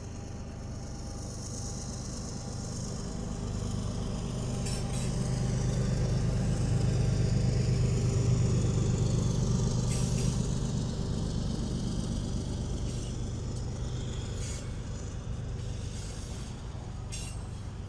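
BNSF diesel-electric freight locomotives rolling past, their engines' low drone building to its loudest about halfway through as the units come alongside and then easing off. A few brief sharp sounds cut in along the way.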